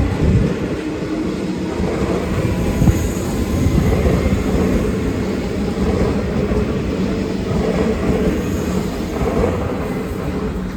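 Comeng electric suburban train running past, its wheels rumbling over the track, with a sharp clunk about three seconds in.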